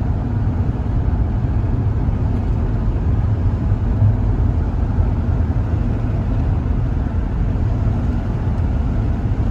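Steady low rumble of a van driving on the highway, engine and road noise together with no change in pace.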